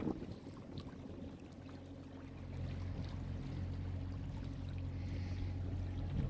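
Small boat's motor running with a steady low hum that sets in a little over two seconds in, over wind and water rushing on the microphone.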